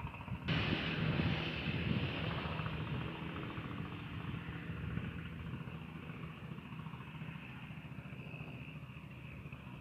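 An engine running steadily, cutting in abruptly about half a second in and fading slowly over the following seconds.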